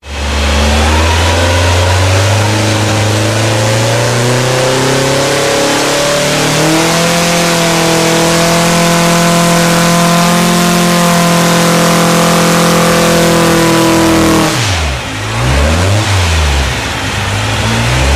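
Air-cooled Volkswagen Type 1 flat-four with twin dual-throat carburettors running loud on an engine dyno. Its revs climb steadily for about seven seconds and then hold high at full throttle. Around fourteen seconds in the throttle shuts and the revs fall away, then dip and rise a few times.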